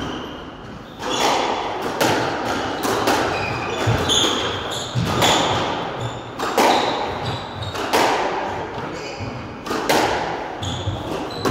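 Squash rally in an enclosed court: the ball cracks off the rackets and walls about once every second or so, each hit ringing with echo, and short high squeaks of shoes on the wooden floor come between the hits.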